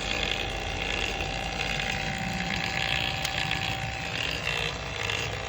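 Vacuum pump running steadily on a vacuum furnace chamber, a constant mechanical hum with a thin steady whine, while the chamber holds a good vacuum.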